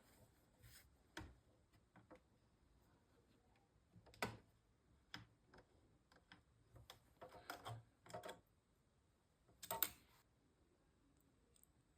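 Scattered light clicks and taps of small computer parts and tools being handled during PC assembly, with a louder knock about four seconds in and another near ten seconds, and a short run of clicks around seven to eight seconds.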